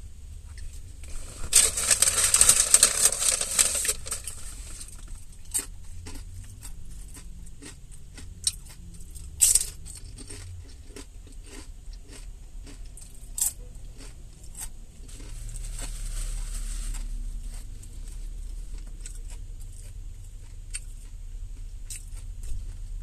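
Close-up eating sounds of a person eating tortilla chips and salad. A loud crunching noise lasts about two seconds early in the stretch, followed by scattered sharp crunches and clicks of chewing and a fork against the bowl, over a steady low rumble.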